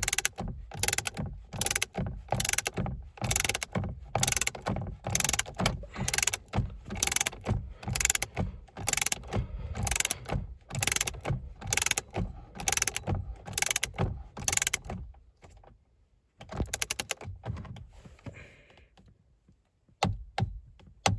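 Ratchet wrench clicking in steady back-and-forth strokes, about two a second, running down the steering wheel's new M12 bolt. The strokes stop about 15 seconds in, and a few short clicks follow.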